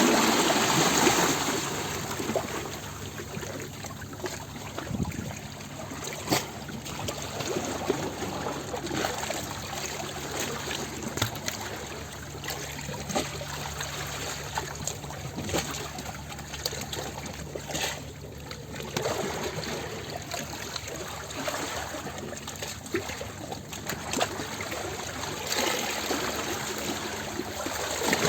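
Water trickling and splashing, with many small drips and splashes, a little louder near the start and near the end. A faint steady low hum runs underneath.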